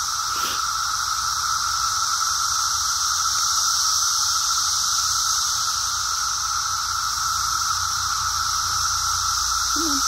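Brood X periodical cicadas in full chorus: a steady, unbroken drone at two pitches, one lower and one much higher.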